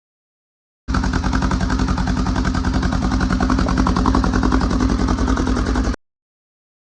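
Freshly rebuilt 2015 Polaris RZR 900 engine, a twin-cylinder four-stroke, running with a rapid, steady pulsing exhaust beat after its overhaul. It is heard for about five seconds, starting and stopping abruptly.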